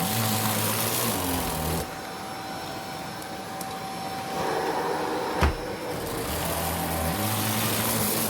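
Vacuum cleaner running with a steady whine over rushing air. The rush of air drops away about two seconds in, a single sharp click comes a little after halfway, and the full rush returns soon after.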